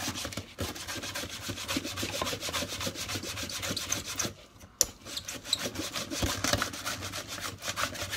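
Pampered Chef Simple Slicer, a handheld mandoline, being worked quickly back and forth: the food holder scrapes across the blade several times a second as bell pepper is sliced thin. There is a short pause about four seconds in, then the strokes resume.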